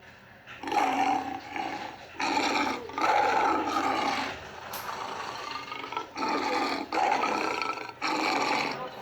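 Custom monster-roar sound effect: a run of harsh, growling roars, about six in a row with short breaks between them.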